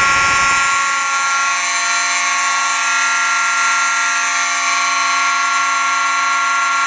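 Several fire alarm horns sounding together in one loud, steady, unbroken blare made of many different pitches at once.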